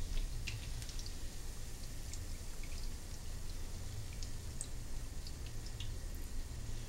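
Spinach fritter frying in hot oil in a skillet: scattered light crackles and pops from the oil over a low, steady rumble.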